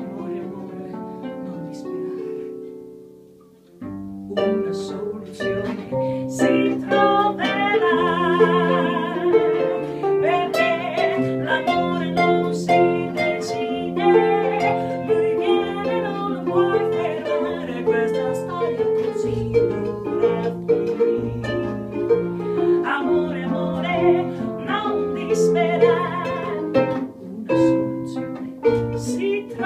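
Instrumental break of a blues song played by a band: a soft plucked-string passage fades away about three seconds in, then the full band comes in with a bass line, sharp beats and a lead line with vibrato.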